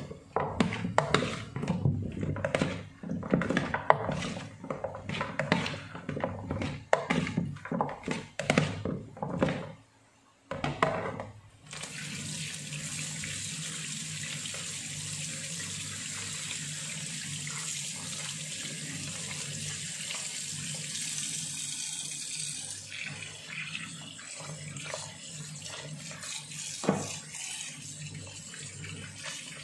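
For about ten seconds, hands squelch and rub a bowlful of raw chicken feet in vinegar, with many irregular wet knocks against a plastic bowl. After a short gap, a kitchen tap runs steadily into the bowl in a metal sink as the feet are rinsed under it, with one sharper knock near the end.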